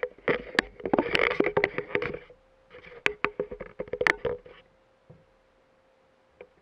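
Rustling and sharp clicks of a handheld action camera being handled and moved, dying away about two-thirds of the way in, over a faint steady hum.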